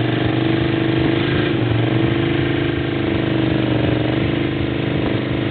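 Quad (ATV) engine running at low, fairly steady revs under load as the machine crawls up a steep wooden ramp, its pitch rising and falling slightly with the throttle.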